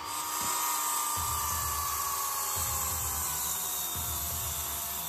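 Circular saw cutting through a rough-sawn ponderosa pine timber, guided along a clamped rail, with a steady hiss of the blade in the wood. The motor's pitch sags slowly as the blade works through the cut.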